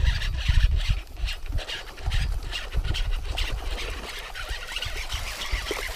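Rustling and scraping of shirt fabric against a body-worn camera's microphone, with irregular low rumbling thumps and crackles.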